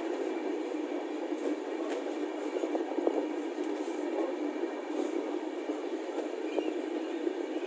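A passenger train running through a station, heard from on board: a steady rumble of wheels on rails, with two sharper knocks about three and six and a half seconds in.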